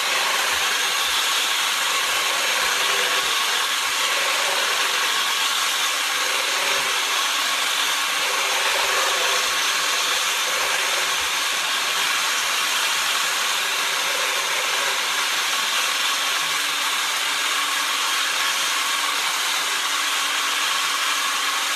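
Electric hand mixer running steadily, its beaters whipping egg whites in a stainless steel bowl.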